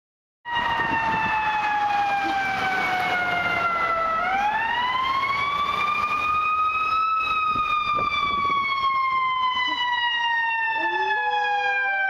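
Ambulance siren wailing in slow sweeps, its pitch falling for a few seconds, rising, then falling slowly again. Near the end a golden retriever starts to howl along at a lower pitch.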